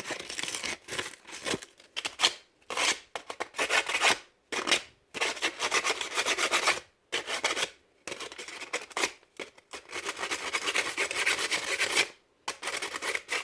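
Sandpaper rubbed by hand over a small Goatguns SVD miniature gun part, scuffing its finish in quick back-and-forth strokes. The strokes come in runs broken by short pauses.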